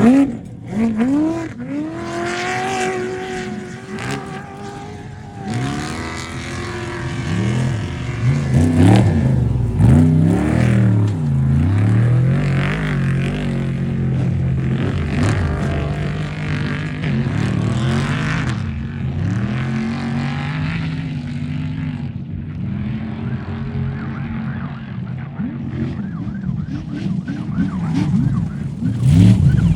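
Off-road race truck engines revving hard, their pitch rising and falling again and again as the trucks accelerate and lift off, with several engines overlapping at times; loudest at the very start and again near the end.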